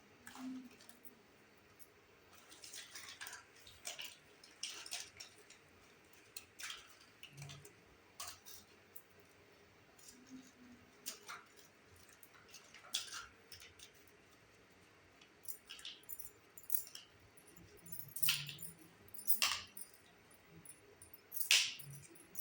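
Small pieces of a Hello Kitty miniature toy kitchen set being handled, giving light irregular clicks and clinks, which grow louder near the end.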